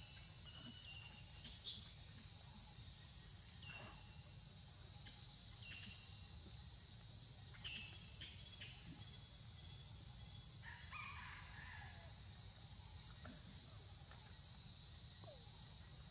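A steady, high-pitched insect chorus drones without a break. A few short bird calls sound over it, around the middle.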